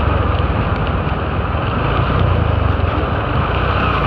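Motorcycle riding on a wet road, its engine running at a steady cruise with a low hum that rises and falls gently, under a steady rush of wind and road noise.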